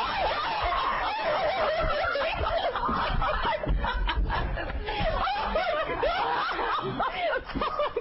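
Several people laughing hard together in short, high peals of laughter.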